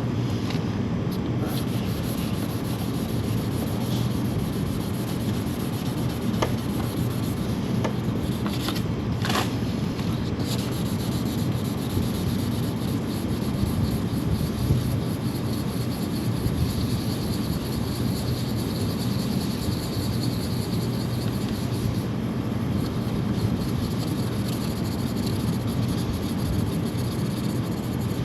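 Sandpaper rubbing steadily back and forth on the Kawasaki Ninja H2's painted bodywork, with a couple of brief light clicks about a third of the way through.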